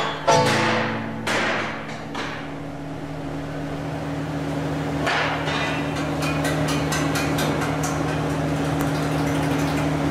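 Three sharp strikes on metal, about a second apart, each ringing out and fading, then a steady low machine hum with light irregular ticking.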